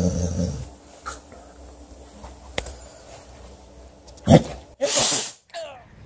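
A dog sneezing about four seconds in: a sharp onset, then a brief hissing blast of air.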